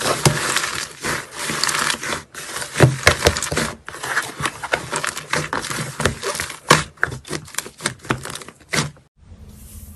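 Slime being squeezed and poked by hand: a dense run of crackles, sticky pops and clicks. Just after nine seconds it cuts off suddenly and a quieter hiss follows.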